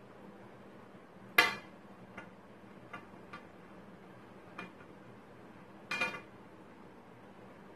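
Sharp taps and clicks on a glass tabletop as kittens play on it: one loud tap about a second and a half in, a few faint ticks, then a quick double tap near the six-second mark.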